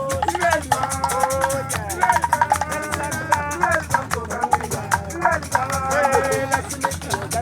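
A group of people singing together, with percussion keeping a quick, steady beat.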